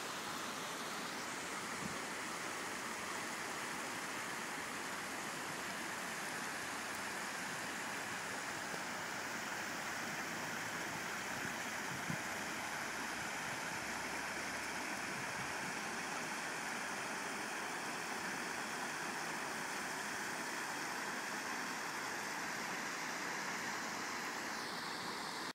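Shallow, low river water running over a stony gravel bed: a steady, even rush of water. A single soft knock about twelve seconds in.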